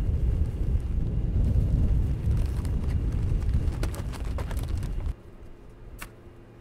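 Wind rumbling on the microphone, with scattered rustles and clicks as seed bags are handled. About five seconds in it drops suddenly to a quieter faint hum with one sharp click.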